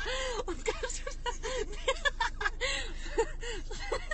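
Young women's voices giggling and chattering quietly, in many short broken syllables.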